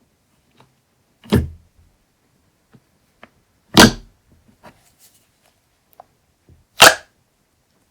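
Slime being worked by hand, giving three short, loud squishing pops spaced about two and a half to three seconds apart, with small faint clicks between them.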